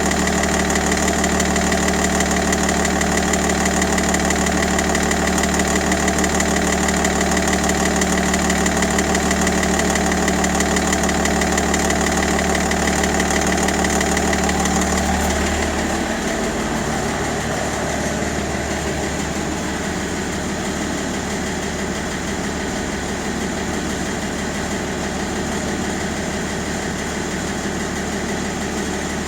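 BMW 530d E60's M57N three-litre straight-six diesel idling steadily with the knocking noise its owner is trying to cure. About halfway through, the engine's low hum changes and the sound gets a little quieter.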